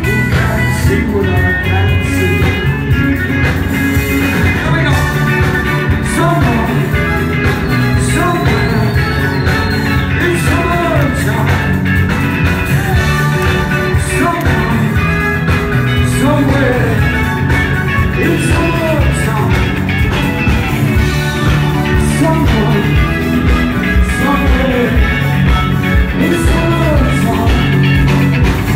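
Live rock band playing a song at full volume: electric guitars, bass guitar and drums, recorded loud and even on a mobile phone from the crowd.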